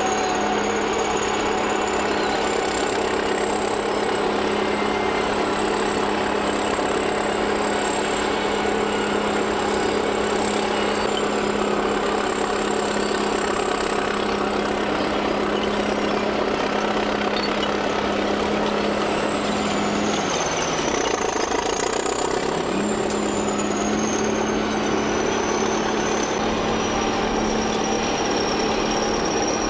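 Crawler bulldozer's diesel engine running steadily, its pitch sagging under load about two-thirds of the way through and then picking back up, with a thin high whine above it.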